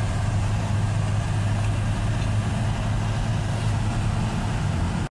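A car's engine and tyre noise heard from inside the cabin while driving: a steady low hum with an even hiss over it.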